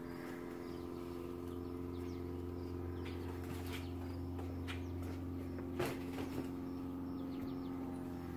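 A steady, unchanging mechanical hum, with scattered faint bird chirps and a few small clicks over it.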